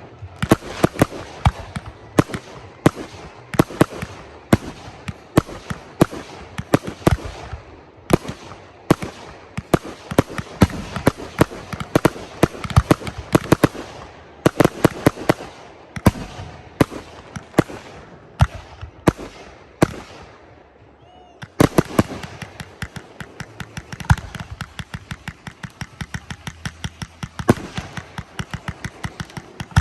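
Fireworks going off in a rapid string of sharp bangs and cracks. About twenty seconds in there is a short lull, then a faster run of quick, closely spaced pops.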